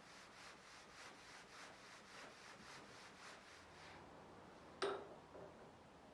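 Faint, steady back-and-forth rubbing, about three strokes a second, as a Japanese plane blade is worked on a whetstone. The strokes stop near the end and a single sharp knock follows.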